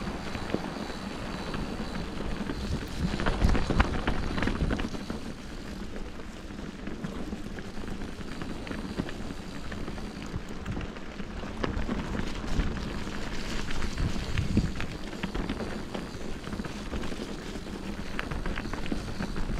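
Riding noise from a bicycle on a forest trail: steady rolling tyre noise with frequent small rattles and knocks from the bike, louder for a moment about four seconds in.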